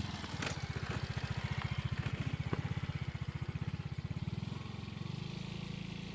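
Small engine passing close by with a rapid, even chugging beat. It grows loudest about two seconds in and fades away about five seconds in.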